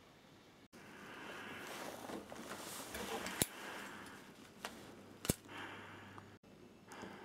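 Faint rustling and handling noises, with two sharp clicks about two seconds apart.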